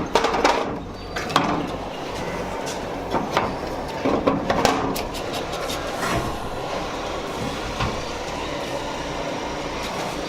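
Scattered knocks and clicks from parts being handled and fitted while an AC dimmer speed control and a switch are mounted on an air cooler, over a steady background noise. The knocks come more often in the first half.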